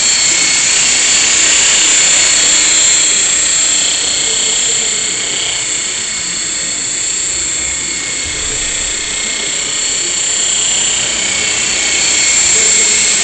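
Esky Belt CPX electric RC helicopter in flight: a steady high-pitched whine from its motor and spinning rotors, a little quieter midway and louder again near the end.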